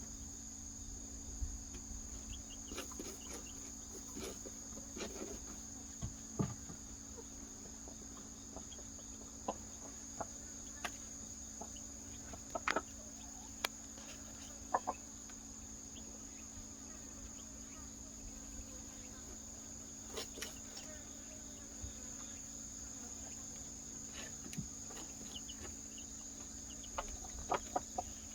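Hen and newly hatched chicks making occasional short clucks and peeps, over a steady high hum of crickets.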